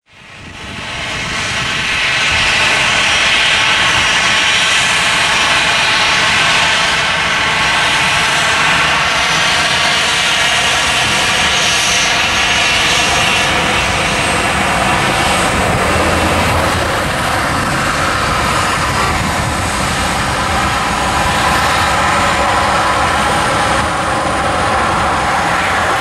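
Jet engine noise from a Boeing 737-800's twin CFM56-7B turbofans, loud and steady with a faint high whine, rising in over the first two seconds.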